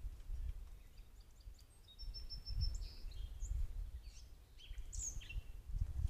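Wild birds chirping and calling, with a short rapid trill about two seconds in and several quick chirps after it, over a low uneven rumble.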